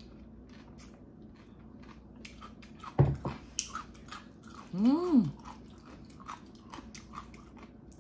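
Close-up eating sounds: wet clicks and smacks of sipping and chewing, a knock about three seconds in as the glass is set down on the table, and a short rising-then-falling 'mmm' of enjoyment about five seconds in.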